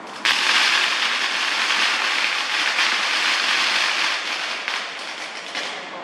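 A string of firecrackers going off outside: a dense, rapid crackle of many small bangs that starts abruptly and runs for about five seconds before dying away.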